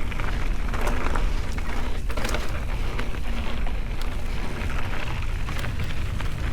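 Mountain bike rolling fast down a dirt singletrack: knobby tyres crunching over gravel and rock and the bike rattling over bumps, with sharp clicks scattered through, over a steady low rumble.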